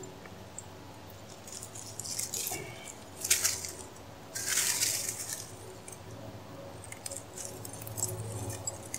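Steel trap cable and a metal snap link clinking and rattling as they are handled, in a few short bouts of jingling with small clicks between; the loudest bout comes about halfway through.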